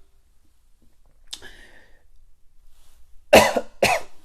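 A man's short vocal noises between phrases: a faint one about a second in, then two sharp ones about half a second apart near the end.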